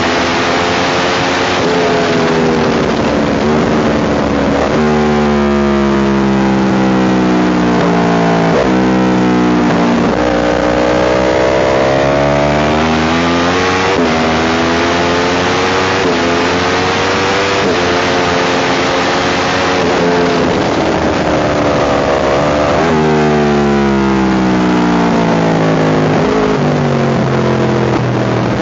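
Motorcycle engine at full throttle on track, recorded on the bike itself. Its pitch climbs through each gear and drops sharply at each upshift, then winds down as the bike slows for corners.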